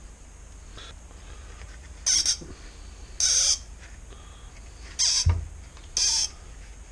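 Four short scraping squeaks, about a second apart, as the piston and crankshaft of a Honda GX35 four-stroke engine are worked by hand, with a low knock just after the third. The parts move very stiffly, a sign that the engine is a little seized.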